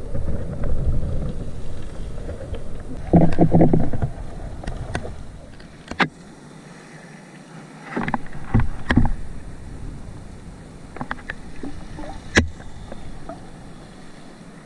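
Underwater ambience picked up by a diving camera: low swishes and rushes of moving water, with scattered sharp clicks, the loudest about halfway and again near the end.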